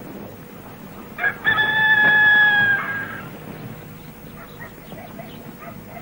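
A rooster crowing once, a little over a second in, in one long drawn-out call.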